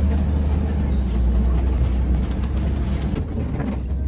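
Safari tour truck's engine running as the vehicle drives along, a steady low rumble.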